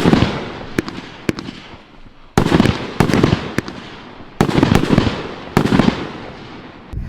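To Hero, a 20-shot consumer firework cake, firing: about ten sharp bangs spaced irregularly over several seconds. Each shell burst is followed by a fading rumble, and there are heavier volleys near the start and at about two and a half, four and a half and five and a half seconds in.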